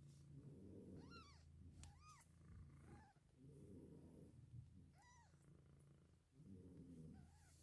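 Faint purring from a mother cat in long low stretches, with about five short, high squeaking mews from her newborn kittens, each rising then falling in pitch, as they are helped to nurse.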